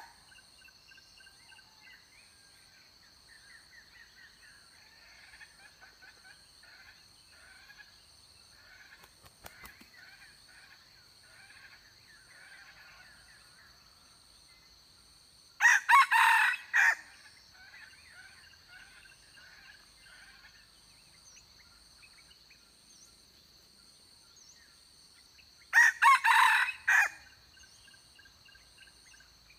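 Red junglefowl rooster crowing twice, short crows about ten seconds apart. Between them, faint chirping and a steady high whine.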